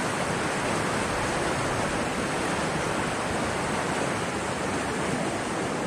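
Mountain stream water rushing over stones, a steady even rush.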